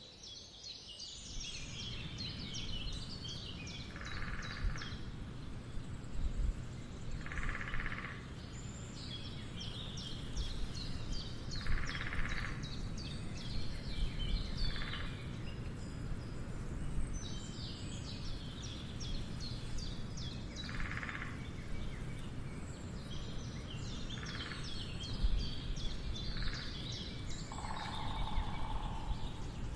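Woodpecker drumming in short rolls every few seconds, mixed with songbirds trilling and a steady low rumble of outdoor background noise. The sound fades in over the first couple of seconds.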